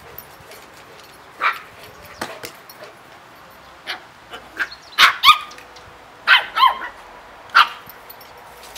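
Lhasa Apso puppies yapping: about seven short, high-pitched yips, spaced apart at first, then several in quick succession a little past halfway.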